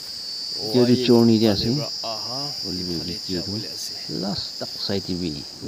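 A man talking, over a steady high-pitched chirring of insects in the surrounding vegetation.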